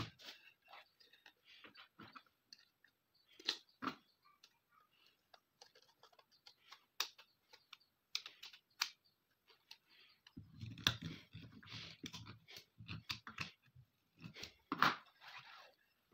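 Scattered small clicks and taps of a screwdriver and metal shotgun parts being handled on a workbench, with a few sharper clicks and, in the second half, soft low bumps and rubbing.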